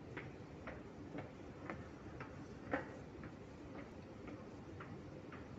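Footsteps on the ribbed metal pallets of a moving walkway: a sharp click about twice a second, with one louder step a little before halfway and fainter steps near the end, over a steady low hum.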